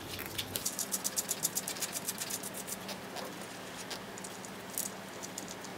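Light metallic clicking as the axle hardware is threaded by hand onto the rear wheel axle against the motor plate. The clicks come fast, about ten a second for the first couple of seconds, then thin out to a few scattered clicks.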